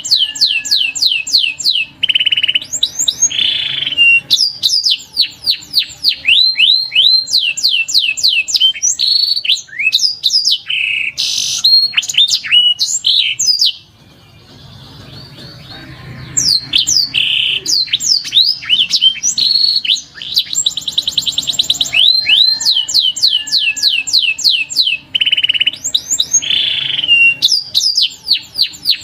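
Canary singing: fast rolling trills of repeated downward-sweeping whistled notes, broken by a short pause about halfway through.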